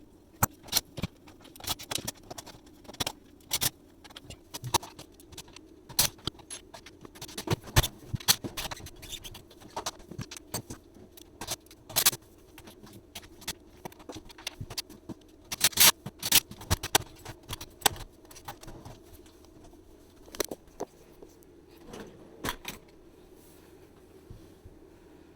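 Irregular clicks, taps and light scrapes of small hard parts or tools being handled, some in quick clusters, over a steady low hum.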